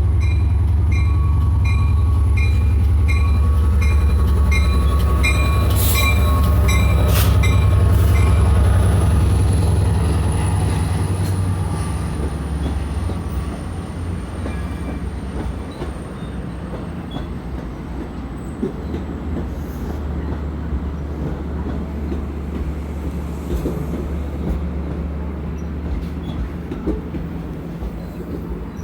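Engine 504's diesel locomotive engine running with a heavy low rumble, loud for the first ten seconds and then fading, with railcar wheel noise under it. A bell-like ding repeats about twice a second for the first eight seconds. Two sharp metallic knocks come a little after halfway through that stretch.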